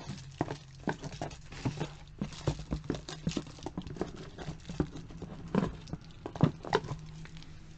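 Handling noise: a plastic bag rustling and crinkling, with many light, irregular clicks and taps of small plastic lipstick tubes knocking together as they are taken out.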